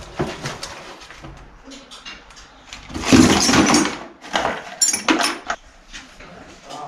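Loose metal bike parts clinking and clattering as they are picked out of one plastic crate and dropped into another, with a louder, denser burst of rattling about three seconds in and a few more knocks shortly after.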